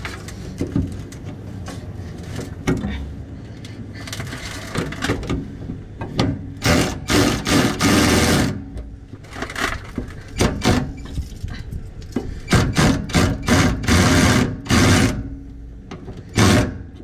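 Irregular metal clanks, scrapes and rattles of hand work on the fuel tank straps under a pickup. The noise comes in dense clusters of sharp knocks through the middle of the stretch.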